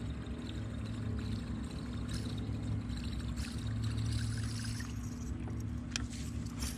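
Bass boat livewell aerator running: water pouring and trickling into the livewell over a steady low pump hum. A couple of sharp clicks near the end.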